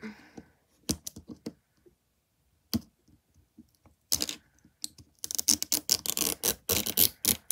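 Fingernails clicking and scratching at the plastic shrink-wrap on a 5 Surprise Mini Brands capsule ball. From about five seconds in, a dense crackling as the wrap is torn open along its zipper tear strip.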